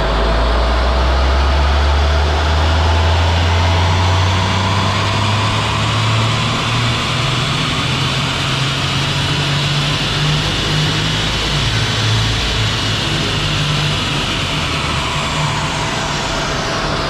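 Kia Ray's naturally aspirated 1.0-litre three-cylinder petrol engine on a chassis dyno during a stock baseline pull, revving up under full load from about 2,000 to over 5,000 rpm, with a high whine that climbs as speed builds. Near the end the throttle comes off and the whine falls away as the run finishes.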